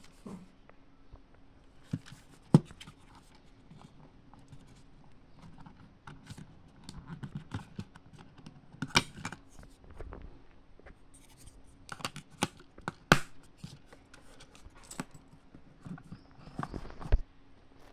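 Handling noise from a small plastic portable radio: scattered clicks and taps, with fingers rubbing and scraping over its case. The sharpest clicks come about two and a half seconds in and around thirteen seconds in.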